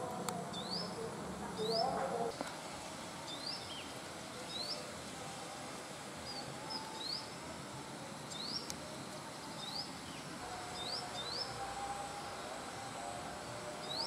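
A sunbird calling: short, high chirps, each sweeping upward, repeated about a dozen times at uneven intervals of roughly half a second to two seconds.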